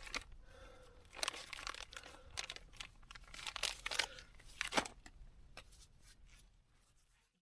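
Close rustling and crinkling with scattered sharp clicks, fading away until the sound cuts off just before the end.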